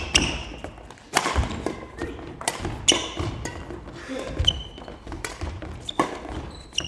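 Badminton play: a run of sharp hits and thuds, about one or two a second, with short high squeaks from shoes on the court floor.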